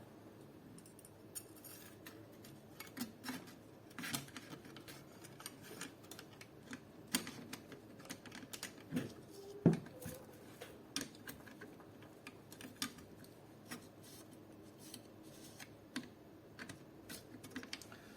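Scattered small clicks and knocks of airsoft AK rifle parts being handled and fitted back together during reassembly, with one sharper knock about ten seconds in.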